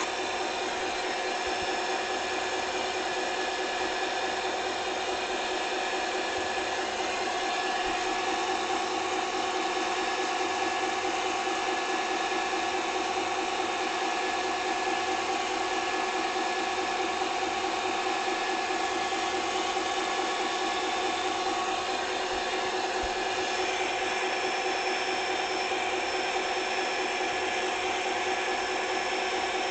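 A machine running steadily: a constant hum with several steady tones over a faint hiss, little changing throughout.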